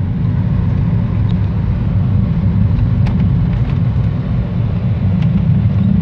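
Car cabin noise while driving: a steady low rumble of engine and road noise heard from inside the moving car.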